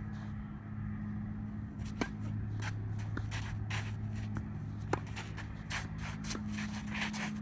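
Tennis rally: a tennis ball struck by racquets, two sharp pops about three seconds apart, with footwork scraping on the court between them over a steady low hum.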